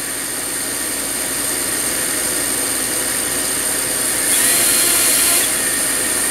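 Small brushless motors and propellers of a King Kong GT 110 micro quadcopter spinning at low speed on a bench: a steady high whine over a whirring hiss, growing louder for about a second from around four seconds in. The motors are being run at minimum speed in a motor test and spin unevenly, which the owner takes for a defective motor or speed controller.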